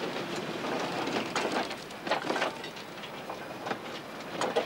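Empty narrow-gauge sugarcane wagons rolling past on the track, with a steady rumble and irregular clanks and rattles from wheels and couplings over the rails.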